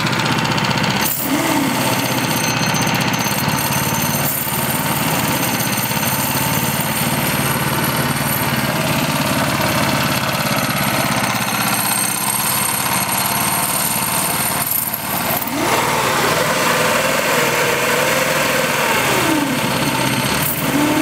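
Small gas engine running steadily, driving a chain-driven gearbox in first gear that turns a mock-up boat propeller shaft. Near the end a whine rises and then falls in pitch.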